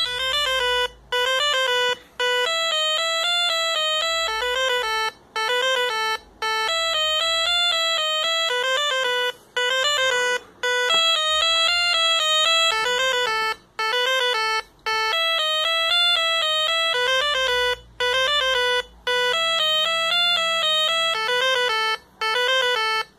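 BBC micro:bit playing a simple beeping tune through a small 8-ohm speaker driven by a BC547 transistor amplifier. The notes are buzzy square-wave tones that alternate between two or three pitches, in short repeating phrases with brief silent gaps between them.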